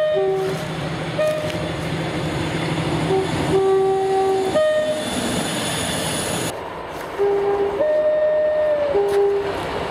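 Two-tone British train horns sounding a series of short alternating high and low notes over the rumble of a train. The background rumble changes abruptly about six and a half seconds in, and two more high-low horn blasts follow.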